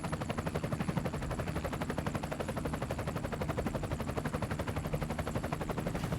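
Pneumatic road drill hammering rapidly and steadily, about a dozen blows a second, over a low engine rumble.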